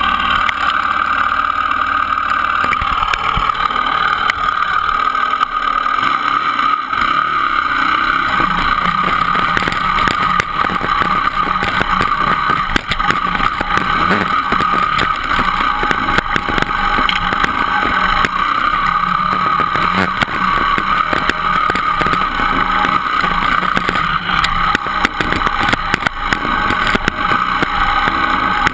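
Dirt bike engine running steadily under load on a rough trail, with many short knocks and rattles from the bumps.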